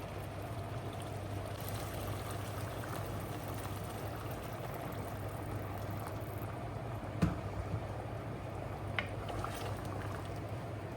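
Food bubbling steadily as it cooks on the stove, over a low hum, with a sharp click about seven seconds in and a lighter one near nine seconds.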